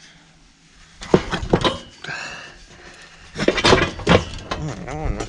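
Knocks and rattles of a steel cattle chute as a restrained young bovine shifts about while a trocar is worked out of its side, then the animal's wavering low bawl near the end.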